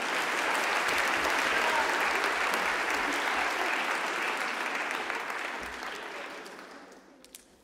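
Theatre audience applauding: a dense patter of many hands clapping at once, loudest in the first few seconds, then dying away, with a few last scattered claps near the end.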